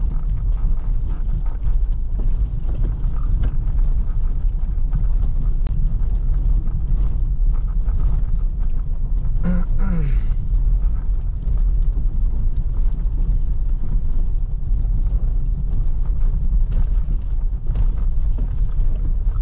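A car on the move, with a steady low rumble of road and engine noise and scattered knocks. About halfway there is a brief pitched sound that falls in pitch.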